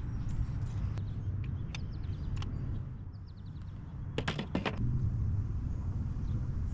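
Scattered sharp clicks and knocks, with a quick run of four about four seconds in, over a steady low rumble.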